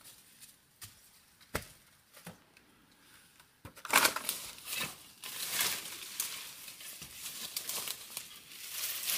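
Dry twigs and dead leaves crackling and rustling in brush: a few faint snaps at first, then from about four seconds in a loud, dense crackling with sharp snaps as the woven bamboo basket is pushed through the dry branches.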